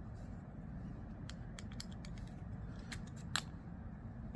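Light, sharp clicks of small metal and handle parts as an unscrewed folding knife is pulled apart, its scales separating from the body; the loudest click comes a little past three seconds in.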